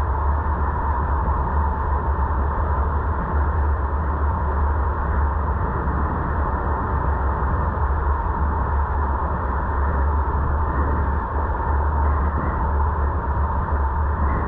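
Steady road and wind noise of a moving car as picked up by a dashcam: a constant low rumble under an even hiss.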